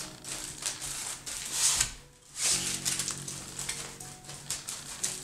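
Aluminium foil crinkling and crackling as it is folded and pressed around a cake, with quiet music of held notes underneath.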